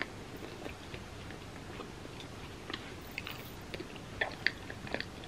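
A person chewing a mouthful of chip with creamy spinach dip close to the microphone: soft, scattered crunches and wet mouth clicks, a few sharper ones near the end.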